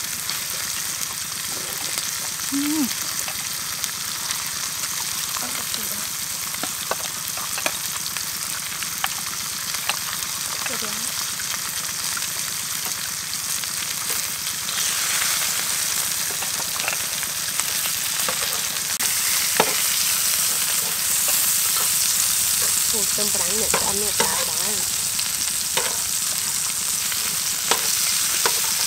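Beef slices and onion rings sizzling in a large black pan: a steady frying hiss that grows louder about halfway through. Chopsticks and tongs click against the pan now and then.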